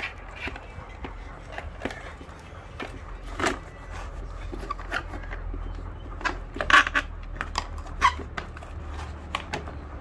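Clicks, taps and knocks of a hard plastic car cool-box housing being handled and pried apart with a screwdriver to reach its fan motor, with louder knocks about halfway and twice near the end, over a steady low hum.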